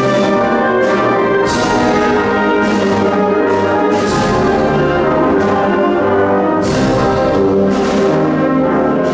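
Symphonic wind band playing a Spanish Holy Week processional march, brass to the fore, in slow held chords. Cymbal crashes mark the beat every second or so.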